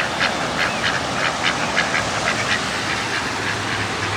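Ducks quacking in a rapid run of short calls, about four or five a second, thinning out near the end.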